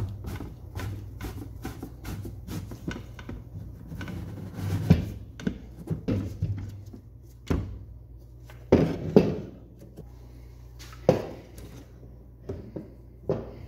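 A thin hardboard panel being handled and set into a painted wooden doll-bed frame: light clicking, about three clicks a second, over the first few seconds, then a series of separate hollow wooden knocks and taps at irregular intervals.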